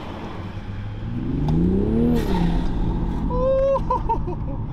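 Toyota A90 Supra's turbocharged engine on its stock exhaust, heard from inside the cabin: revs climb under hard acceleration for about a second, drop sharply at an upshift with a brief high whoosh, then the engine pulls on steadily.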